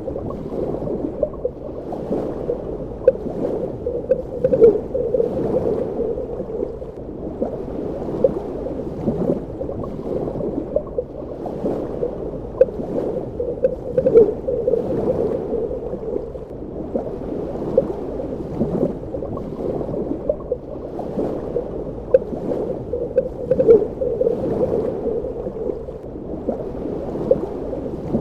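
Muffled underwater ambience: a steady low rush of water dotted with small bubbling pops, swelling about every four to five seconds.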